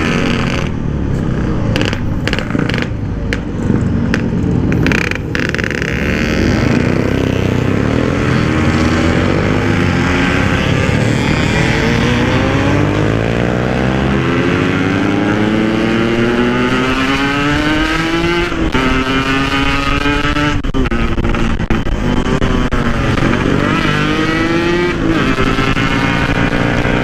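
Yamaha RX-King 135 cc two-stroke single running under way, its exhaust note climbing steadily in pitch as it accelerates, then dropping at each upshift, twice in the second half, before climbing again.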